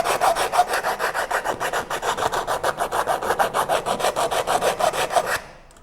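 Sandpaper rubbed rapidly back and forth on the edge of a cut-out in 4 mm plywood, about seven strokes a second, enlarging the opening so a PIR sensor fits; the strokes stop near the end.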